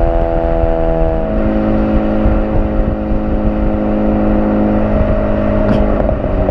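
Modified exhaust of a Honda Civic FK2 Type R's turbocharged 2.0-litre four-cylinder under way at a steady cruise. The exhaust drone changes pitch about a second in, then holds steady.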